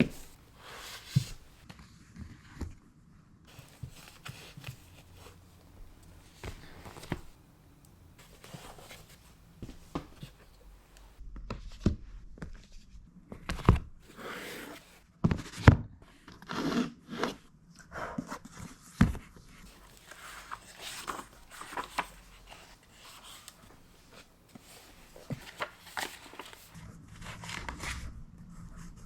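Objects being handled in a small room: scattered taps and knocks with short bursts of rustling, the sharpest knocks falling about halfway through.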